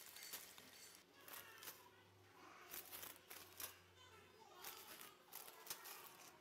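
Faint crinkling and clicking of plastic packaging bags being handled, with quiet voices in the background.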